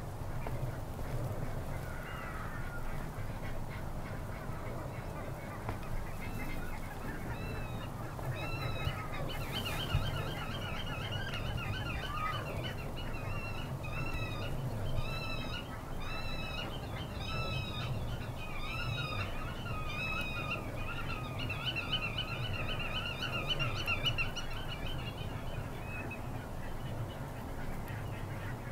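A flock of geese calling: many short, high, repeated calls overlapping, building from about six seconds in and dying away near the end, over a steady low rumble.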